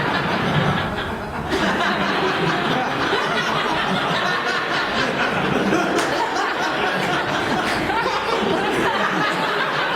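A comedy club audience laughing, steady and sustained, in response to a punchline.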